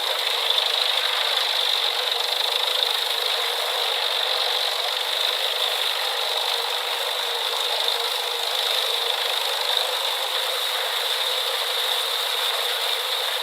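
Industrial drum wood chipper running steadily: a continuous mechanical noise with a constant high whine and no deep rumble.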